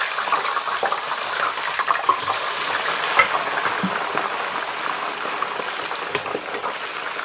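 French fries deep-frying in hot oil: a steady, crackling sizzle of bubbling oil around freshly added fries.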